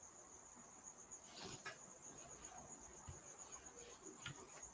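Near silence: room tone with a faint, steady high-pitched whine and a few soft clicks and rustles.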